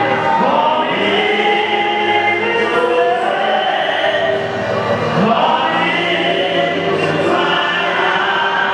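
Congregation singing together, many voices holding and sliding between sustained notes in a gospel hymn or praise chorus.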